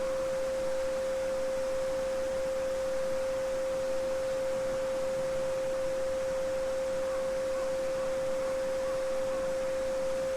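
A steady 528 Hz sine tone (the 'Solfeggio frequency') held unchanging, over the soft even rush of a babbling brook.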